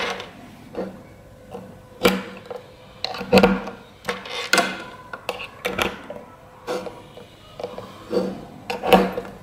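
Red banana-plug test leads being pulled out of and pushed into the terminals of a school circuit kit's battery box and bulb holders: a dozen or so irregular clicks and knocks of plugs and holder bases on the tabletop.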